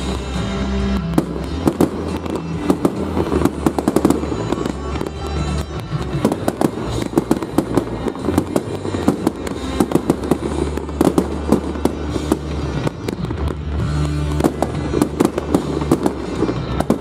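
Aerial fireworks shells launching and bursting in quick succession: a continuous run of sharp bangs and crackles, over music with a sustained bass line.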